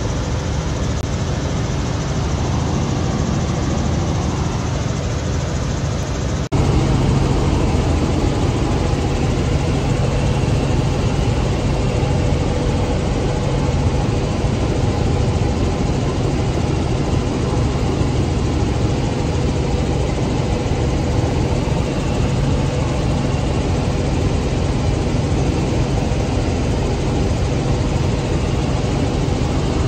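Steady drone of a helicopter in flight, heard from inside the cabin. There is a brief break about six seconds in, after which it continues slightly louder.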